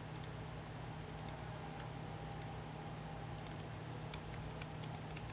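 Faint, scattered clicks of a computer keyboard and mouse as entries are typed into a web form, over a low steady hum.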